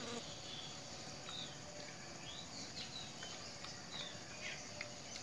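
Faint outdoor ambience: a steady low hiss with several short bird chirps scattered through it.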